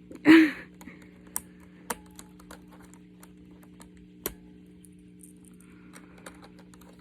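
Plastic keycaps being pried off a keyboard with a wire keycap puller: scattered sharp plastic clicks and clacks, a few seconds apart, with a brief loud noisy burst just after the start.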